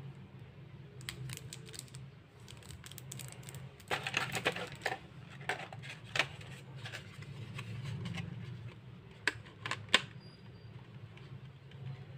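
Hands handling a plastic pencil case and its wooden graphite pencils: scattered light clicks and taps, a cluster of rattling about four seconds in and three sharp clicks near ten seconds in, over a steady low hum.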